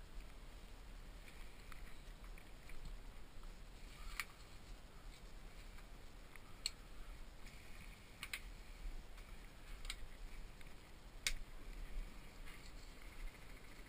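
Faint handling noise on a workbench: about five sharp, separate clicks, a second or two apart, over a low steady background.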